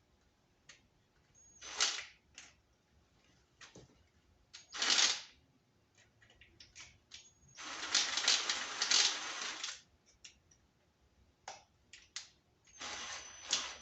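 A ratchet clicking in several short runs, with a longer run in the middle, as it loosens the worm-drive screw clamp on the radiator hose at a Honda Civic's thermostat housing. Single clicks and knocks of the tool fall between the runs.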